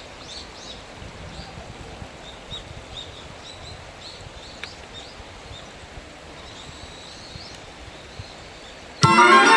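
Small birds chirping in short repeated notes over a steady outdoor background hiss. Near the end, music starts abruptly and loud.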